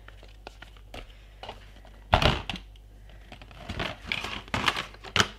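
Paper and packaging being handled: rustling and crinkling with small clicks and taps, the loudest crinkle about two seconds in.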